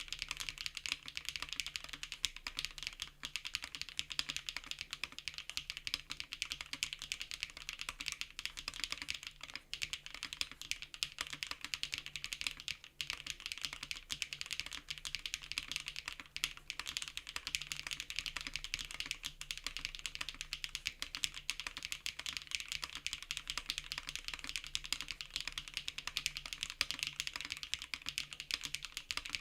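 Typing on a JRIS65 R2 65% custom mechanical keyboard fitted with HMX x Soulcat Poro Medium linear switches: a steady, dense stream of keystrokes with a few brief pauses.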